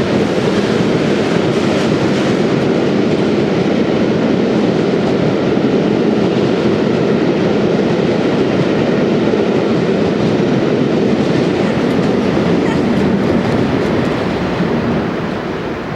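A train hauled by an English Electric Class 40 diesel locomotive passing at close range under power, making a loud, steady running noise. It fades over the last two seconds or so as it draws away.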